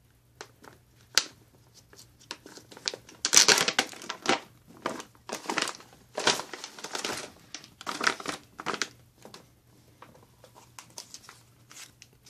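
Plastic XMRE ration bag being torn open and its packets pulled out and handled. Crinkling and rustling come in irregular bursts, loudest about three to four seconds in.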